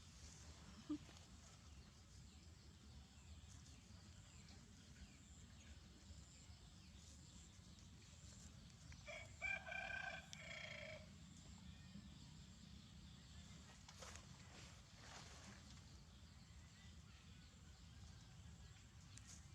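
A rooster crows once, about two seconds long, about nine seconds in, over a faint background; a single short click comes about a second in.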